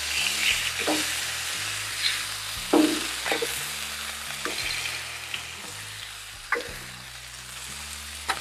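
Ground beef sizzling on a hot, oiled flat-top griddle while a metal spatula and press smash the patty and slide across the steel, with a few sharp scrapes and clacks.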